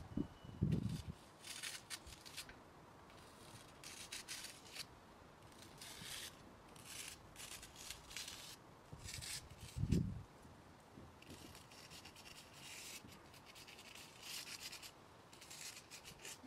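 Short, irregular scraping strokes of black paint being brushed by hand across rough concrete paving as a character is written, with a soft low thump about ten seconds in.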